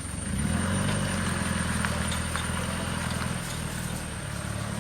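Land Rover 110 engine running steadily, a low pulsing rumble that picks up slightly about half a second in; the engine has just been brought back to life after nearly three years unused.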